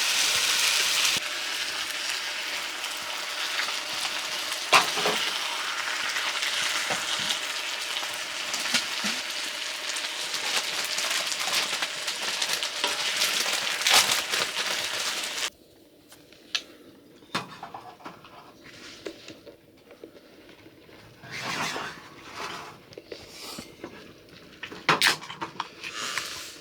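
A steady hiss for about fifteen seconds that cuts off suddenly. After it come scattered light clinks and knocks, like dishes and utensils being handled.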